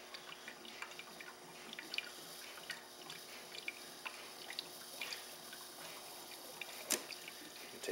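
Faint, irregular drip-like liquid ticks from the running HHO electrolysis cell, over a soft steady hiss, with one sharper click near the end. The owner puts the cell's hiss down to a small gasket leak letting pressure escape.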